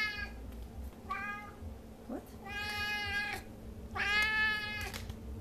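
F6 Savannah cat meowing repeatedly: the tail of one meow at the start, then three high meows, each up to about a second long, the last two the longest and loudest.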